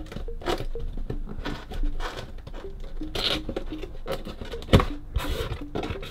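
Cardboard toy box being opened by hand: flaps and lid scraping and rustling against each other, with a sharp knock of cardboard about five seconds in.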